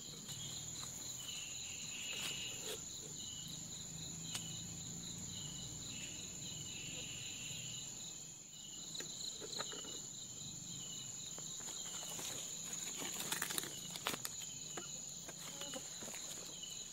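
Night insects, crickets by their sound, trilling steadily: one high continuous trill and a pulsing one a little lower, with short chirps coming and going. A few light clicks and rustles of handling come after about twelve seconds.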